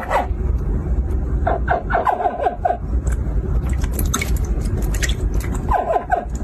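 Hatchling crocodiles calling: short chirps that fall in pitch, in a quick cluster about one and a half seconds in and another near the end, over a steady low hum.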